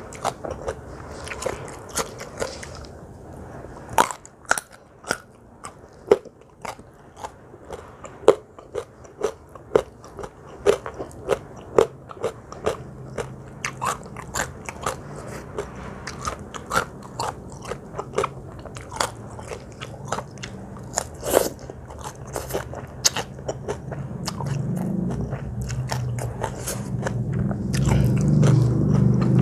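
Close-miked eating: a person biting and chewing crunchy food, with many sharp crisp crunches at an uneven pace. A low rumble builds in the last few seconds.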